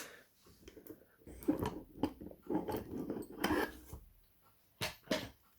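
Small metallic clicks and scrapes from handling a freshly picked-open Kasp 19070 padlock and its picking tools, in an irregular run, then two sharp clicks near the end.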